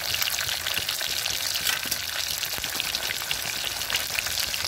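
Masala-coated fish pieces shallow-frying in hot oil in a kadhai: a steady sizzle full of fine crackles.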